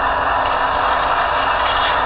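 Sound-equipped HO scale SD40-2 model locomotive running, its small onboard speaker playing a steady EMD diesel engine sound.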